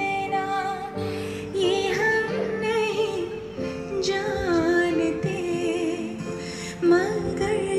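A song with a singer and instrumental backing, played from a USB stick on an Alpine IDE-178BT head unit through an Alpine three-way car speaker enclosure. The voice wavers in pitch over steady instrumental notes, at an even level.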